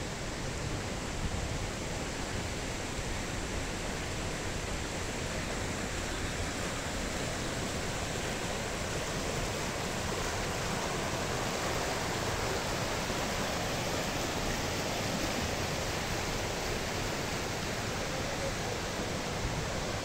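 Steady rush of a swollen mountain stream tumbling over rocks below a waterfall, running very hard with winter flow.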